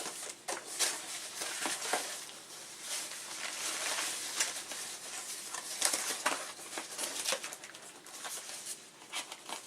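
Plastic bag crinkling and rustling in irregular crackles as a tightly fitting monitor part is handled in it.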